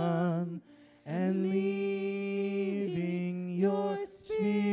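A worship team of men's and women's voices singing a slow hymn refrain in long held notes. The singing breaks off briefly about a second in, then carries on.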